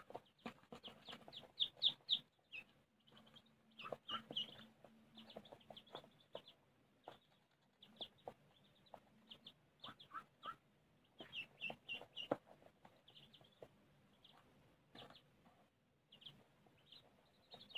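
Couple-of-days-old Muscovy and runner ducklings and silkie chicks peeping: many short, high calls in clusters with brief pauses between them.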